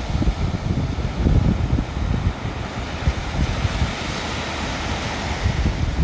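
Ocean surf washing on a shore, a wave's hiss swelling about halfway through and easing off, with wind buffeting the microphone in low gusty rumbles.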